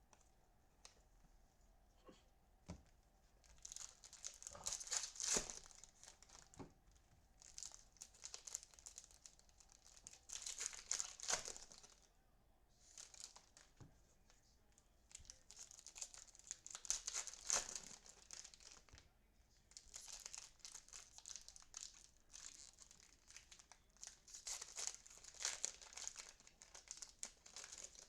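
Foil baseball-card pack wrappers being crinkled and torn open, in a series of crackly bursts every few seconds.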